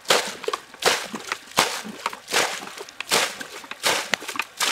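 Muddy water being bailed out of a shallow pool with a plastic bucket: repeated scoops and splashes as each bucketful is flung out, about one every three quarters of a second, around seven in all. The pool is being drained to catch fish by hand.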